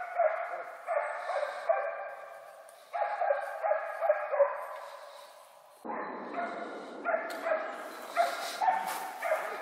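Hunting dogs barking and baying repeatedly in quick bursts, as they drive wild boar through the forest.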